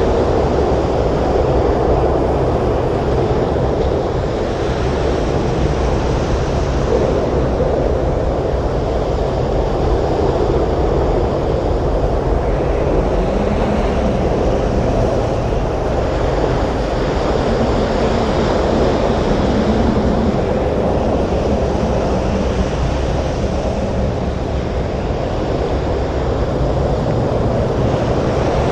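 Storm wind and breaking surf on a beach: a dense, steady noise that swells slowly every few seconds.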